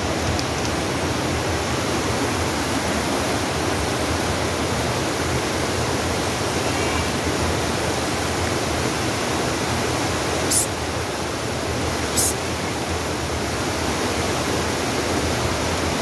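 Steady rushing of a rocky mountain stream. Twice near the end, a second and a half apart, comes a short sharp hiss.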